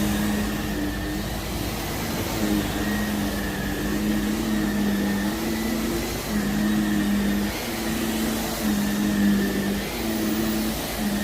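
Vacuum cleaner running over heavily soiled carpet, its motor hum shifting slightly in pitch every second or so as it is pushed back and forth.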